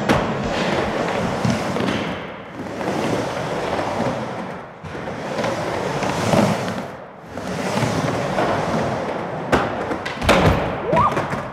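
Skateboard wheels rolling on a wooden ramp, the rumble swelling and dipping about every two and a half seconds as the rider carves back and forth across the bowl. Near the end come a few sharp knocks of the board against the wood.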